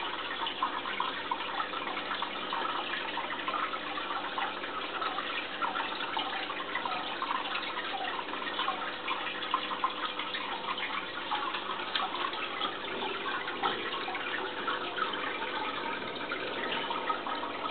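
Aquarium water trickling and bubbling steadily, a continuous splashy hiss full of tiny crackles, with a faint steady hum underneath.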